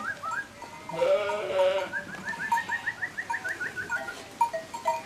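A flock of sheep bleating, with one loud wavering bleat about a second in. A quick run of short, high rising notes repeats several times a second in the middle.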